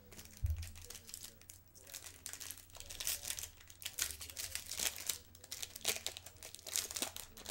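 Foil wrapper of a 2014 Bowman Chrome trading-card pack being crinkled and torn open by hand, a dense run of irregular sharp crackles. A single low thump comes about half a second in.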